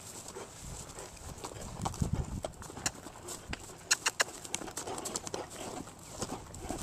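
Horse's hoofbeats on the ground as it moves around on a lunge line, with scattered sharp knocks and a few low thuds.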